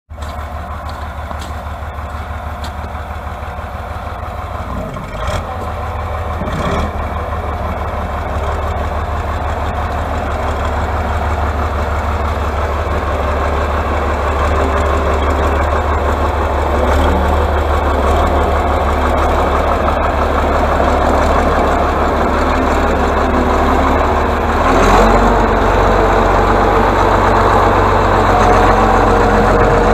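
Diesel engine of an Atlas AB 1602 wheeled excavator running as the machine drives up, growing steadily louder. About 25 seconds in the engine note drops and deepens as its front blade pushes into snow. Two short knocks come a few seconds in.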